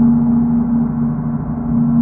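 A gong ringing in a sustained low hum with no new strike, its tone swelling and easing slightly.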